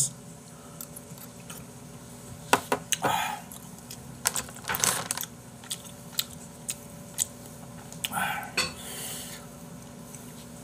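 Eating sounds: scattered light clicks and clinks of a metal spoon against dishes, with a few short, louder scuffs.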